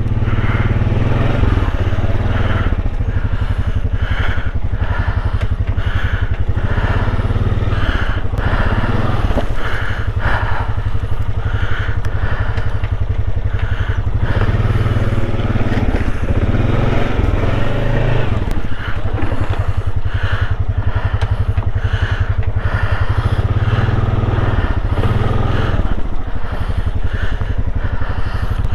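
Engine of a small off-road vehicle running at low speed while it is manoeuvred to turn around, its note swelling now and then as it takes more throttle.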